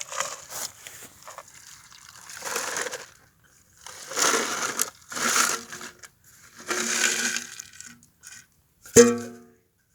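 Ice being shaken and scraped out of a bullet-torn tin can in three rattling bursts, then one sharp metallic knock with a brief ring near the end.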